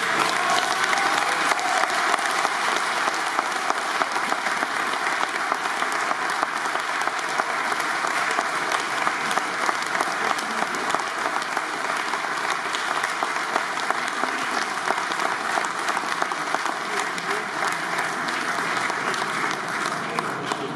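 An audience clapping in a long, steady round of applause.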